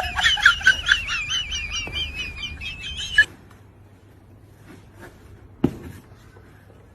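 A small bird singing a rapid, warbling high-pitched trill of quick repeated notes, which cuts off abruptly about three seconds in. After that it is faint, with a single sharp knock near the end.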